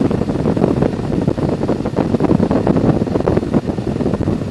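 Wind rushing and buffeting over the microphone with the Harley-Davidson Electra Glide's V-twin running underneath, steady at highway cruising speed.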